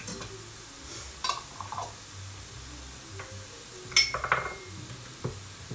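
Knife and kitchen utensils clinking and knocking on a cutting board as a lemon is cut and handled: a few scattered taps, with the sharpest clink, ringing briefly, about four seconds in.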